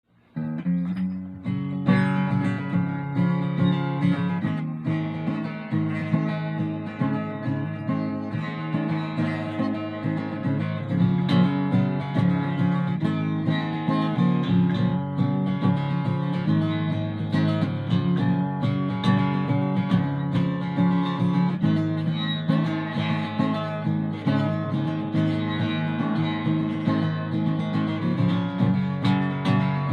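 Ovation Applause AE27 acoustic-electric guitar played unplugged: a solo instrumental run of chords, strummed and picked in a steady rhythm.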